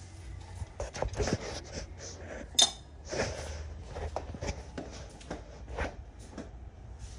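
Metal tools and parts clinking and knocking as they are handled, about a dozen separate knocks, with one sharp ringing clink about two and a half seconds in.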